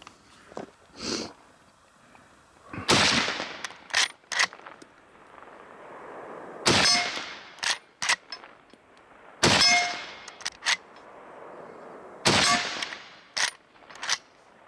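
Henry Long Ranger .308 Winchester lever-action rifle fired four times, roughly three seconds apart, each shot trailing off in an echo. Between shots there are pairs of sharp metallic clicks as the lever is worked to chamber the next round from the box magazine.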